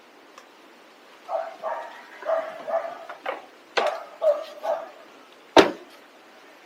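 A dog barking, a run of about nine quick barks over a few seconds, followed near the end by a single sharp knock.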